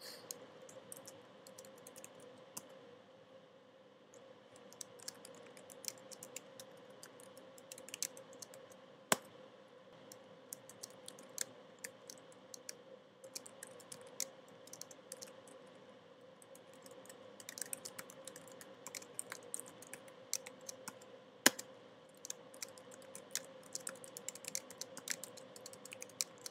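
Typing on a computer keyboard: irregular runs of faint key clicks, with two sharper, louder keystrokes about a third of the way in and again past the three-quarter mark, over a faint steady hum.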